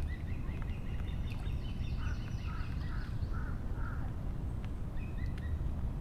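A crow cawing five times in a row, evenly spaced, starting about two seconds in, while small birds twitter higher up through the first four seconds. All of it sits over a steady low outdoor rumble.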